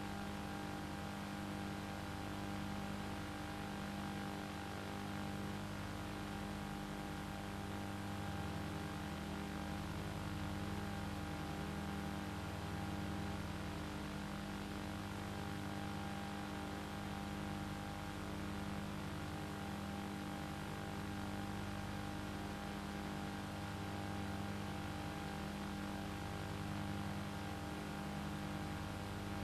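Steady mechanical hum with several held tones over a hiss, its lowest part swelling and fading about every four seconds.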